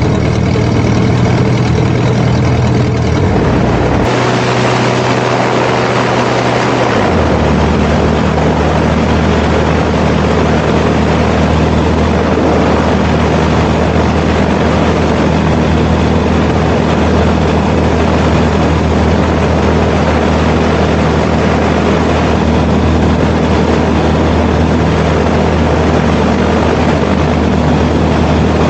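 Savannah STOL ultralight's piston engine and propeller running on the ground, a loud steady drone close by. About four seconds in a rushing hiss joins, and a few seconds later the engine note shifts and then holds steady.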